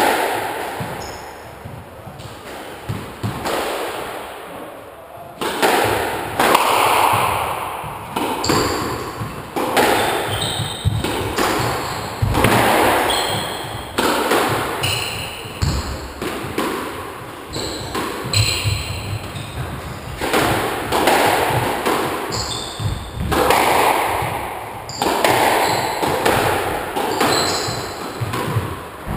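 Squash rally: sharp cracks of the ball off the rackets and walls about every second or two, each ringing out in the echoing court, with shoes squeaking on the wooden floor between shots.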